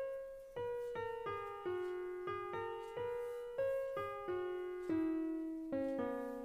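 Background piano music: a slow melody of single struck notes, about two or three a second, each fading away, the lower line stepping down in pitch.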